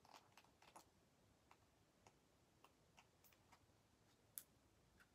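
Near silence with about a dozen faint, irregularly spaced small clicks and ticks, the loudest one about four and a half seconds in.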